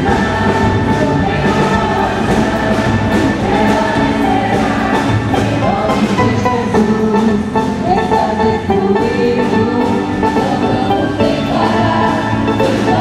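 Christian worship song with several voices singing together over a band with drums.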